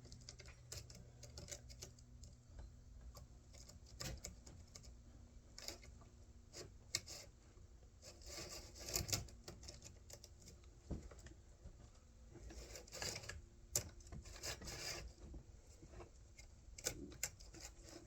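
Scattered light clicks and knocks with a few short rubbing sounds: chainsaw parts being handled during reassembly.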